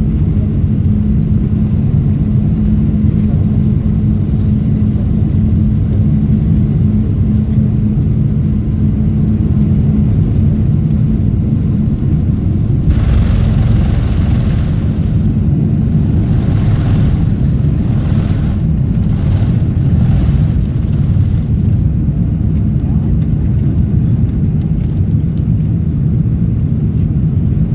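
Cabin noise of a four-engined Boeing 747-400 at takeoff, heard from a window seat: a loud, steady low engine rumble with a steady hum that fades out partway through. About halfway in, a hissing rush swells and comes and goes for several seconds.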